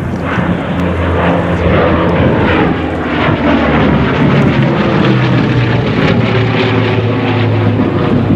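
Propeller-driven airplane flying past with a steady engine drone, its pitch sliding lower as it passes.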